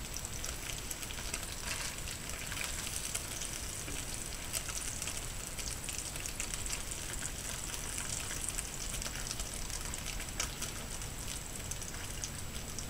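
Cut wieners frying in oil in a pan: a steady sizzle with many small crackles and pops.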